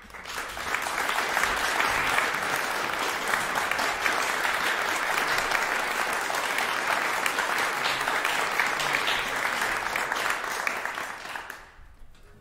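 Audience applauding steadily, building up within the first second and dying away about a second before the end.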